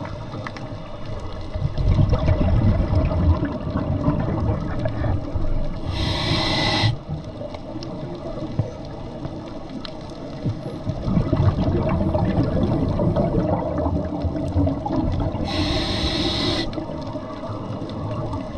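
A scuba diver breathing through a regulator, heard underwater: two long rumbles of exhaled bubbles, each closed by a second-long hiss of inhalation from the regulator, about ten seconds apart.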